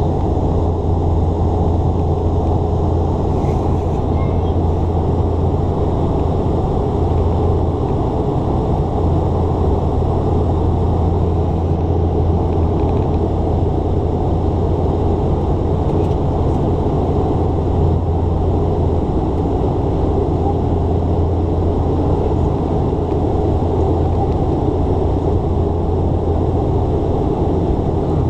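Passenger-cabin drone of a Dash 8 Q400 turboprop in flight: its two Pratt & Whitney PW150A engines and six-bladed propellers give a steady deep hum under an even rushing noise, unbroken throughout.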